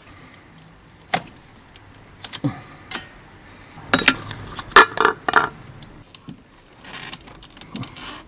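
Spark plug leads and their plastic boots being handled and pushed into place in an engine bay: scattered sharp clicks and light rattles, thickest about four to five and a half seconds in.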